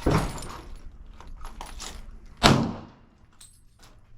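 Two pistol shots from a .40 handgun, one at the start and a louder one about two and a half seconds later, each with a short echoing tail.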